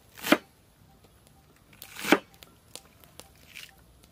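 Two short rustling crunches about two seconds apart, each swelling quickly to a sharp peak, from fresh leafy vegetables being handled, followed by a few small light ticks.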